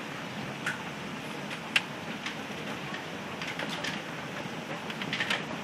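Heavy rain with hail: a steady hiss of falling rain, broken by irregular sharp clicks of hailstones striking hard surfaces, with a quick cluster of hits near the end.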